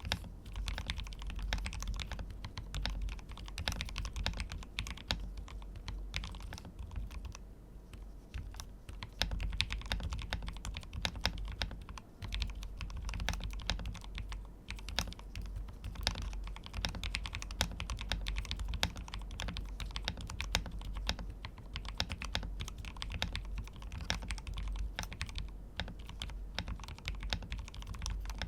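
Steady, fast typing on an Akko 5075S VIA 75% mechanical keyboard with XDA-profile keycaps, a dense run of key clacks. The switches have springs lubed with GPL 105 and stems with BDZ, and the stabilizers are lubed and balanced.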